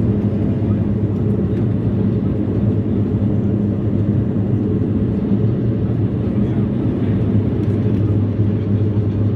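Steady cabin drone of a Bombardier Dash 8 Q400's Pratt & Whitney PW150A turboprops and six-bladed propellers, heard inside the passenger cabin: an even low hum with a strong, constant propeller tone.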